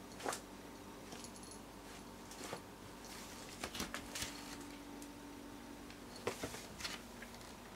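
A cat nosing and rummaging among shoes on the floor, making scattered light clicks and jingles in small clusters, like a collar tag, over a faint steady hum.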